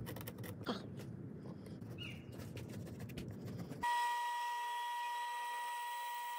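Pencil scratching along the edge of the lure as it traces the outline onto a block of cypress wood. About four seconds in, this gives way abruptly to a bandsaw running with a steady whine.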